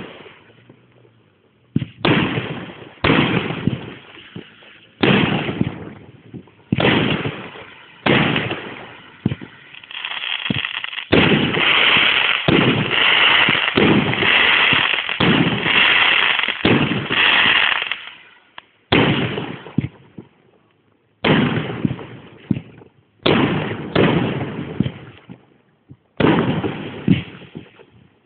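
Aerial fireworks bursting one after another, each sharp bang dying away in a rumbling tail. Partway through, a dense barrage of bursts runs together for several seconds, then single bangs come again a second or two apart.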